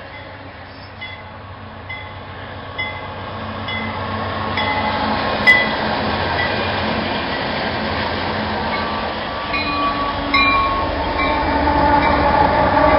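Freight train diesel locomotives passing close by, engines running and wheels rolling on the rails, growing steadily louder. A few sharp clicks sound along the way, the loudest about halfway through.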